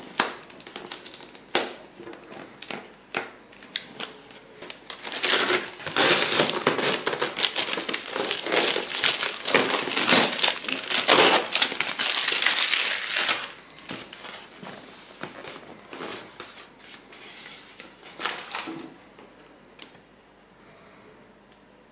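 Plastic packing tape being peeled off a polystyrene shipping box and crumpled in the hand: scattered clicks and rustles at first, a loud dense crackling stretch in the middle, then sparser rustles that stop a few seconds before the end.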